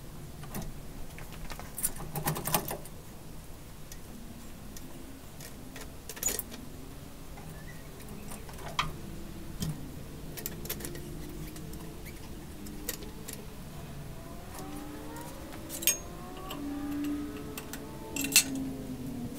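Scattered metallic clinks, rattles and knocks from the engine hoist's chains and the Subaru EJ22 engine as it is worked by hand into the bus's engine bay, with a low steady background hum.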